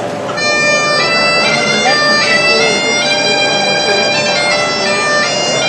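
Bagpipe playing a stepping melody over a steady drone, the tune coming in about half a second in.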